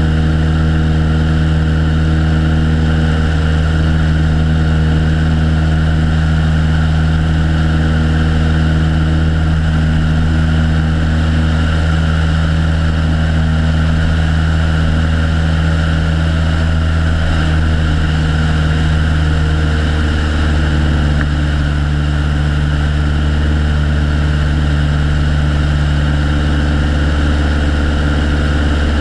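Piper Colt's four-cylinder Lycoming O-235 engine and propeller running steadily in flight. The engine note shifts slightly about two-thirds of the way through.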